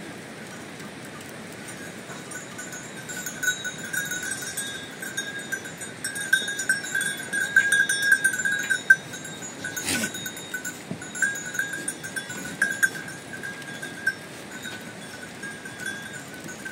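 Livestock bells clinking over and over, busiest in the middle, with one sharp knock part-way through.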